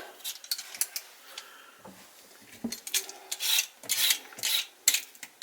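Freshly sharpened vegetable peeler shaving a vegetable: a few faint scrapes, then a quick run of short scraping strokes from about three seconds in.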